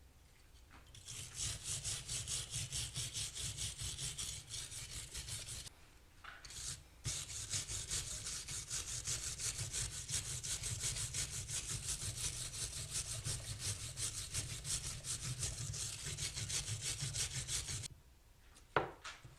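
Hand-held steel wire brush scrubbed back and forth over a part to strip old paint, in fast even strokes of about four a second. The strokes pause briefly partway through and stop near the end, followed by a single sharp click.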